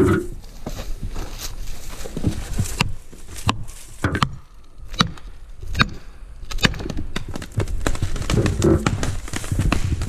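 An axe striking a plastic felling wedge driven into the back cut of a spruce, a series of sharp knocks roughly a second apart, hammering the wedge in to tip the tree over.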